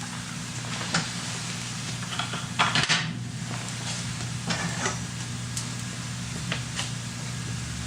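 Pancake batter sizzling in a frying pan, with a spatula scraping and knocking against the pan a few times, loudest about three seconds in. A steady low hum runs underneath.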